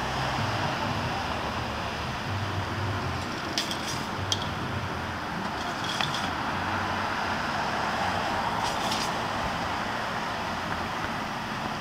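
Steady outdoor street noise with a low vehicle engine hum underneath. A few light metallic clicks and clinks come about four seconds in, again at six seconds and near nine seconds.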